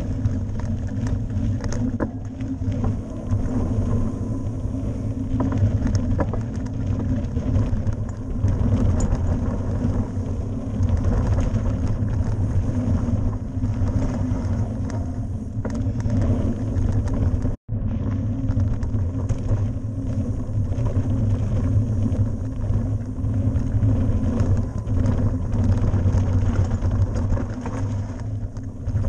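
Mountain bike riding fast down a dirt forest trail: a steady rumble of tyres over the packed dirt and wind on the microphone, with light rattles and clicks from the bike over bumps. The sound cuts out for an instant about two-thirds of the way through.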